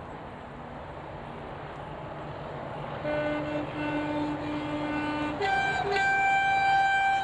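Approaching Class 37 diesel locomotive's two-tone horn: a lower note sounded twice, then a longer, louder higher note. Under it runs the growing rumble of its English Electric diesel engine.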